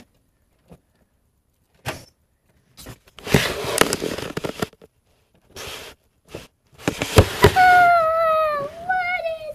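Handling noise as a small camera is picked up, moved and set down: a click, a few seconds of scraping and rustling, and two sharp knocks. Near the end a high voice holds one long, wavering note.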